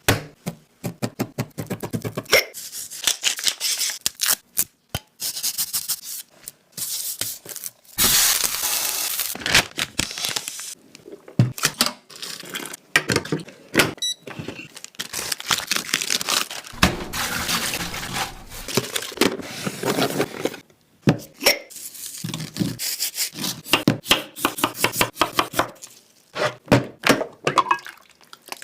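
Kitchen utensils knocking, tapping and scraping against dishes and pans, with many short sharp knocks and longer stretches of noisy scraping or rustling.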